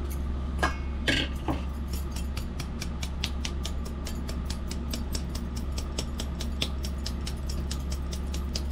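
Ground urad dal flour being sifted through a hand sieve. The sieve is shaken and tapped in a quick, even rhythm of about five light clicks a second, with a few louder scrapes about a second in, over a steady low hum.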